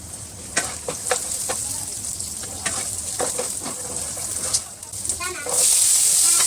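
Food frying in oil in a pan, with a spatula scraping and knocking against the pan. About five and a half seconds in, the sizzle suddenly jumps to a loud, steady hiss.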